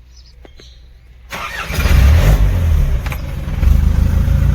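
Isuzu NPR diesel truck engine being cranked and starting about a second in, then running loudly with some swells in speed. It starts now that the loose wiring connection that had kept starter current from coming through has been restored.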